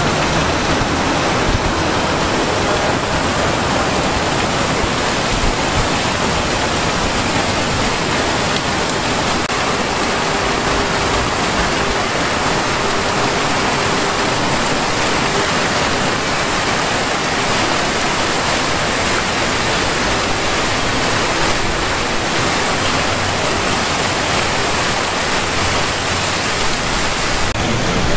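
Steady rush and splash of a two-tiered fountain, its water jets from dog sculptures falling into the basin.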